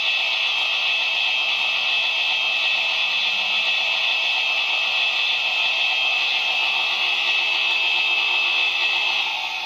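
Steady steam hiss of a standing model steam locomotive, a recorded sound played by its digital sound decoder through a small onboard speaker.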